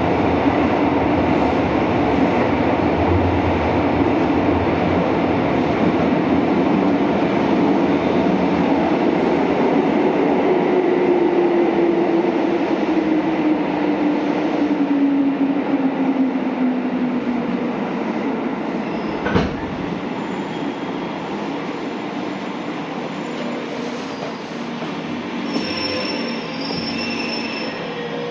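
Onboard running sound of a JR 205 series electric train in a tunnel: a steady rumble of wheels on rail, echoing underground. A motor and gear whine falls in pitch as the train slows. One sharp knock comes about two-thirds of the way through, and faint high squeals sound near the end.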